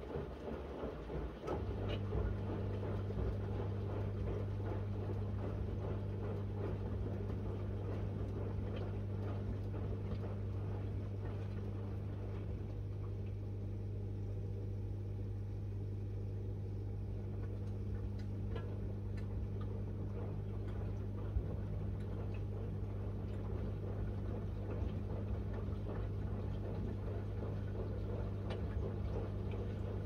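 Miele W1 front-loading washing machine running a cottons wash with a full load: a steady low motor hum starts about two seconds in and holds, over the constant swish of water and laundry in the drum with scattered light clicks.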